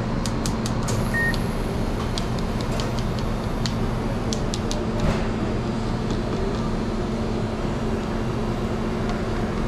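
Steady low hum of restaurant kitchen equipment and ventilation, with light clicks and clatter through the first half and one short electronic beep about a second in.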